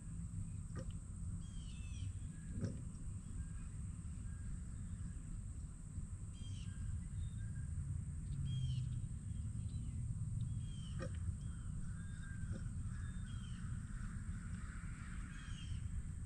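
Crows cawing repeatedly outdoors over a steady low rumble, with a few faint clicks of handling.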